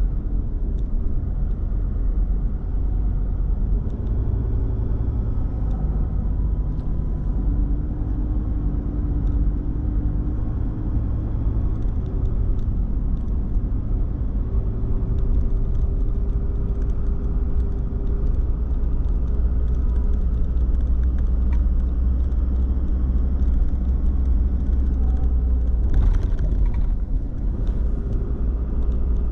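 Car driving: a steady low rumble of road and engine noise, with faint engine tones that drift up and down in pitch. There is a brief sharper crackle near the end.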